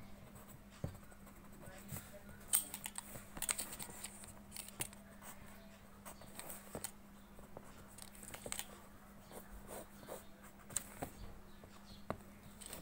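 Pencil scratching on paper in short, irregular hatching strokes, with sharp ticks as the point strikes the sheet. A faint steady hum runs underneath.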